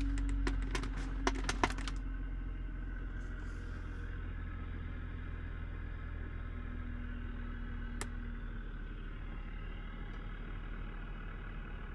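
BMW E46 330i's 3.0-litre straight-six idling, heard inside the cabin with the blower fan off, with a steady low hum and the faint noise from behind the dash near the passenger footwell that sounds kind of like a gurgling; the owner wonders whether it is a vacuum leak near the lower intake hose. A few light clicks near the start.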